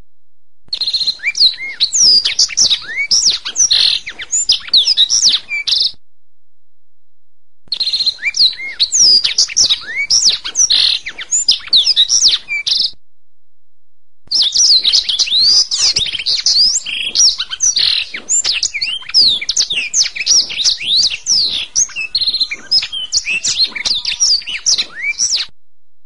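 Domestic canary singing in three long bouts of fast trills, chirps and quick rising and falling whistles, high-pitched and dense. The bouts start and stop abruptly, with short silent gaps of a second or two between them.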